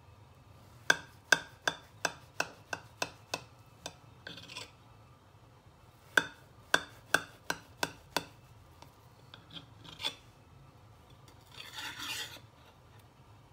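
Kitchen knife cutting through a baked yogurt cake on a porcelain plate: two runs of sharp clicks, about three a second, with short rasps as the blade saws through the crust, then a longer scrape near the end as the blade slides under the slice against the plate.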